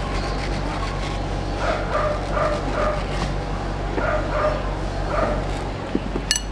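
A dog barking, a series of about seven short barks in two bunches, over a steady background hum, with a sharp click near the end.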